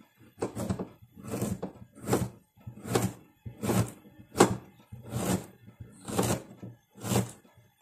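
Kitchen knife slicing through fresh ginger root into a plastic cutting board: a steady series of about nine chopping knocks, roughly one every 0.8 seconds.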